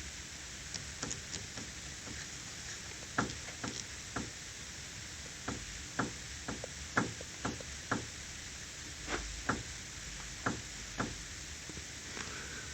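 Light, irregular clicks and knocks, a dozen or so spread over several seconds, from a Renault steering rack as its tie rod is pulled down by hand. This is the steering-rack knock: the rack shaft moving with play in its plastic bushing.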